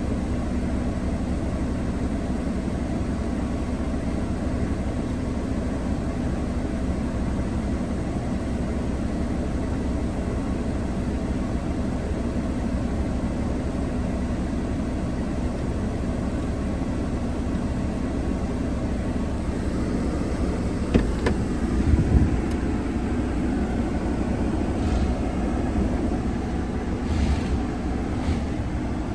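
Steady hum of a Mercedes-Benz GLB 250's turbocharged 2.0-litre four-cylinder idling at about 800 rpm, heard from inside the cabin. A few light clicks and knocks come about three-quarters of the way through.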